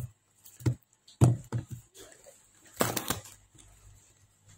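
A cardboard parcel wrapped in paper being handled on a table: a few knocks and thumps as it is turned over and set down, then a scraping rustle of paper and cardboard about three seconds in.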